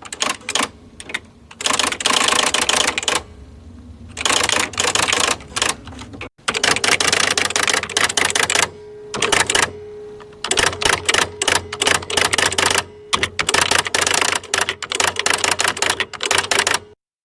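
Electric typewriter typing in fast bursts of key strikes with short pauses between them. A steady hum sits underneath, and a higher steady tone joins it about halfway through.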